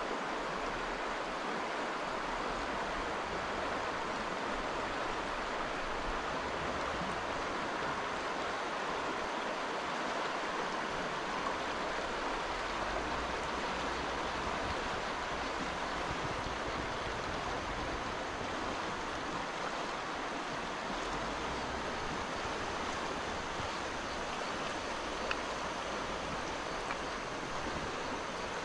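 A large, fast-flowing stream rushing steadily.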